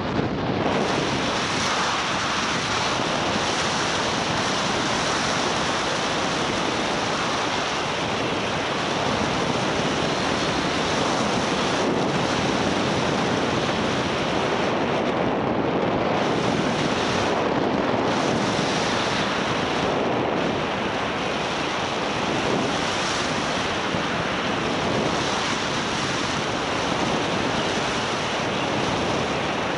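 Steady rush of airflow over the microphone of a camera carried by a paraglider in flight, with no engine or voice in it.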